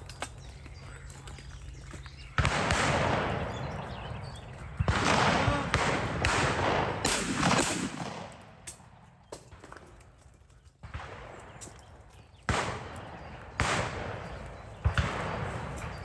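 Shotgun shots fired at clay targets: several sharp reports spaced a second or more apart, some close together in pairs, each trailing off over a second or two.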